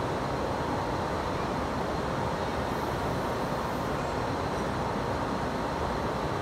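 Steady machinery noise in a machine shop: an even rumble and hiss with a faint high whine running through it.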